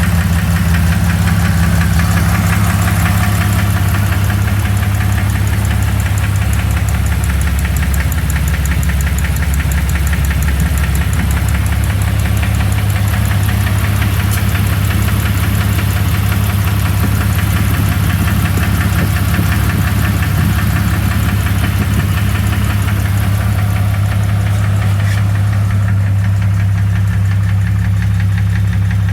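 2001 Jeep Cherokee's 4.0-litre inline-six running steadily with a repetitive knock. The owner cannot place the cause and lists knock or piston slap as possibilities; the flexplate is new, so it is not a bad flexplate.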